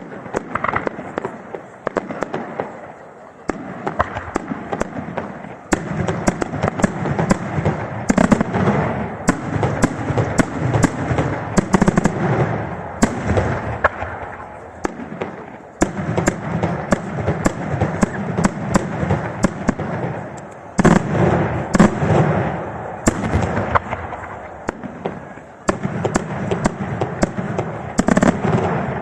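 Daytime aerial fireworks going off in rapid, dense volleys of sharp bangs over continuous crackling. Heavier surges come every few seconds, the loudest about two-thirds of the way through.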